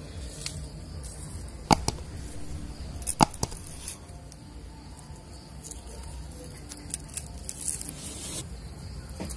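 Garlic cloves being peeled against the blade of a bonti: faint scraping and skin rustle, with two sharp clicks about two seconds in and again a second and a half later, over a low steady background rumble.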